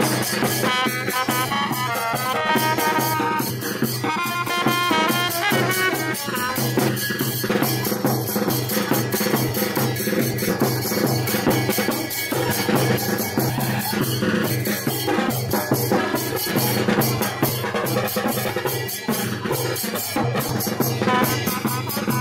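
A marching band playing: rapid, steady drumbeats, with a horn melody over the first few seconds, then mostly drums.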